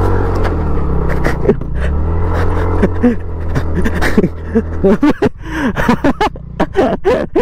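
A motorbike engine revving hard during a drifting attempt, its pitch rising and falling, then easing off about five seconds in. Shouts of people follow near the end.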